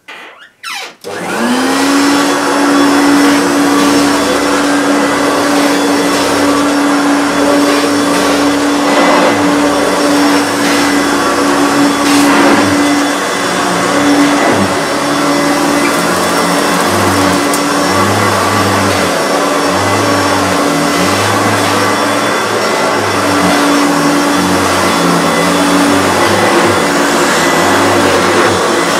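Hoover Turbopower U2332 upright vacuum cleaner switched on about a second in, its motor note rising as it spins up and then running as a steady hum. From about halfway the sound comes and goes in a rough rhythm as it is pushed to and fro over carpet. Its drive belt is slack, so it is due for a new belt.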